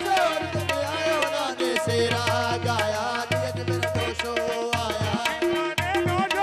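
Live devotional manqabat music without words: a held, ornamented melody over tabla drumming.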